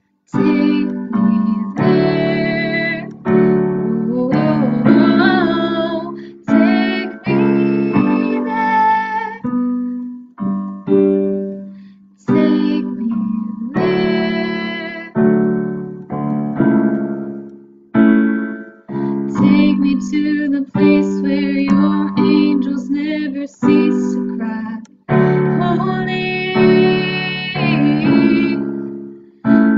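A woman singing a worship song to her own keyboard accompaniment, with chords struck and left to fade one after another.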